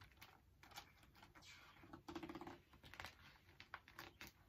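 Faint paper rustling and light tapping as the pages of a hardcover picture book are turned and handled, with a short rustle about two seconds in.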